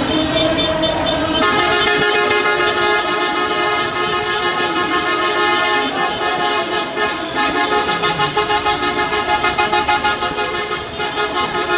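Car horns honking together in celebration, several held in long blasts at once. From about halfway through, a fast rhythm of short beeps, several a second, runs for a few seconds.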